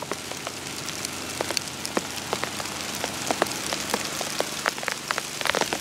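Light rain falling on dry fallen leaves: many scattered, separate drop ticks over a steady hiss.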